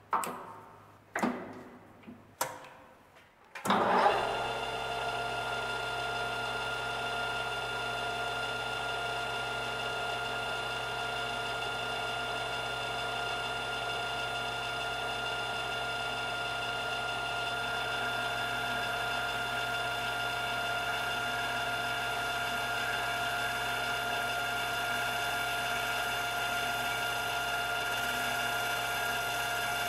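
A few sharp knocks, then a Wasino LR-55A lathe starts about four seconds in and runs steadily with a whine of several fixed tones. A triangular insert takes a facing cut across the end of the spinning workpiece, adding a light hiss.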